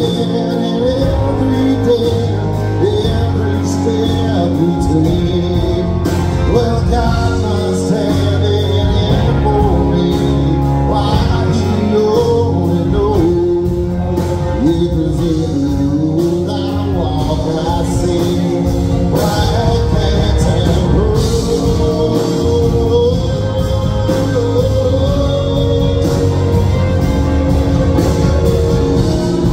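Live band playing a country song on stage, with keyboard and bass guitar under a melodic lead line that bends in pitch, during a stretch without clear sung words.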